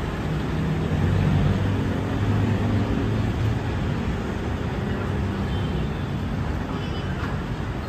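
Road traffic at a city intersection: vehicle engines running and tyres on the road, with a heavier engine hum loudest in the first three seconds that then eases off.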